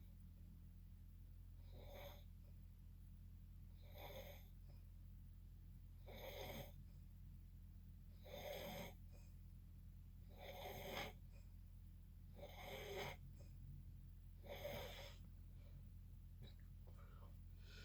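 A sleeping person snoring in a steady rhythm: about seven snores, roughly one every two seconds, the middle ones the strongest, over a constant low hum.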